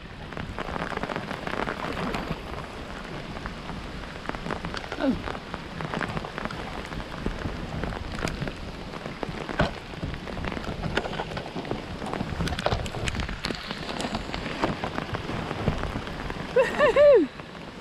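Rain falling on the river: a steady hiss full of small sharp ticks from individual drops. A person's voice gives a brief call near the end.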